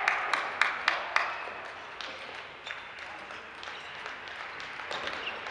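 Scattered clapping with sharp clicks dies away in the first second or so. After that comes the steady hum of a sports hall, with a few light clicks of table-tennis balls.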